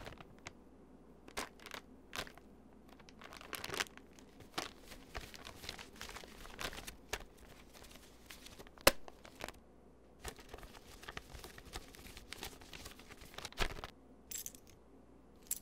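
Quiet paper and plastic crinkling and rustling, with scattered light clicks and taps on a countertop, as a snack bag of powdered donuts and a wad of cash bills are handled.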